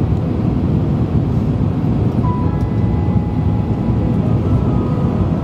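Steady cabin noise inside an Airbus A350 airliner on descent to land: an even, loud, low rumble of engines and airflow heard through the fuselage.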